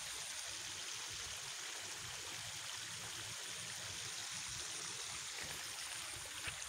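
Steady rush of running water from the flooded rice paddies, with a thin, high, steady tone above it.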